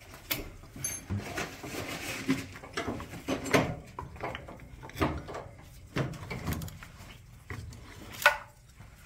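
Irregular clicks, knocks and light clatter of gloved hands working at the ignition leads and distributor on a classic Mini's Austin A-series engine, with a sharper knock near the end.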